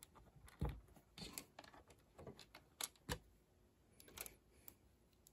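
Faint, scattered plastic clicks and taps of LEGO pieces being handled and pressed back together, about a dozen irregular small knocks.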